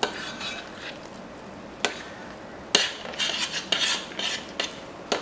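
Rice flour being mixed by hand into a mashed jackfruit and coconut mixture in a glass bowl: scratchy rubbing and stirring sounds, heaviest in the second half, with a few sharp clicks.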